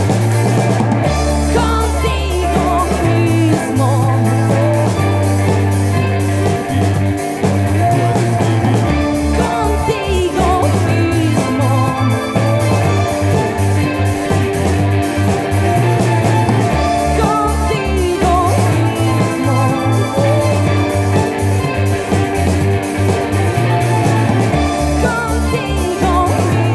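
Live band playing a song: drum kit, electric guitar, electric bass and synthesizers, with a male lead singer's vocal at times over a steady pulsing bass line.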